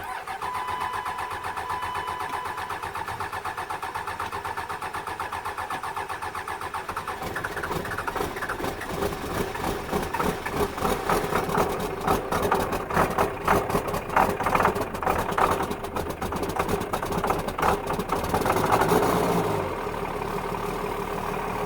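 Rebuilt 24-valve Cummins inline-six diesel cranking on the starter in an even rhythm for about seven seconds, then firing unevenly and stumbling as it tries to catch, before settling into a steady idle near the end: a hard start after the rebuild.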